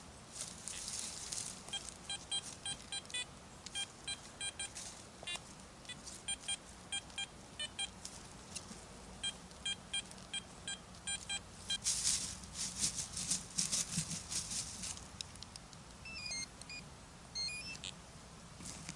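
Garrett Apex metal detector beeping in short, repeated bursts of the same tone as the coil sweeps over a target, with a few higher, shifting tones near the end. Scratchy rustling and scraping noise comes in between the beeps and is loudest about two-thirds of the way in.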